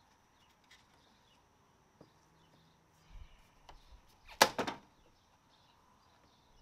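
Plastic retaining clips of a 2021 Hyundai Sonata N Line's front bumper cover popping loose as it is pulled away by hand: one sharp snap about four and a half seconds in, with two or three smaller snaps right after it and a few faint clicks before.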